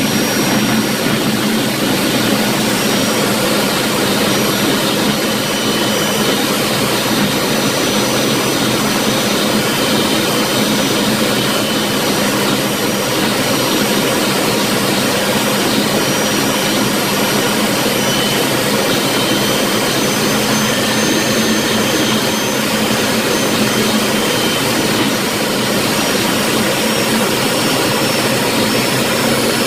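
Jet Provost's Viper turbojet engine and airflow heard from inside the cockpit in steady cruise: a loud, even rush with a faint high turbine whine over it.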